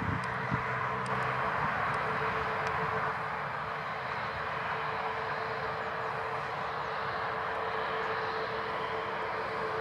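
Airbus A320neo jet engines at taxi idle: a steady rushing hiss with a constant mid-pitched whine.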